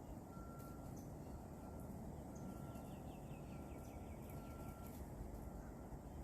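Outdoor ambience: a steady low rumble, with a short high note repeated about once a second and, in the middle, a rapid trill of quick falling notes from a bird.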